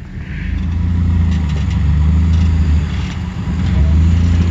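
Jeep Wrangler engine running with a steady low rumble as it crawls over rock, getting louder about a second in, with a few faint knocks.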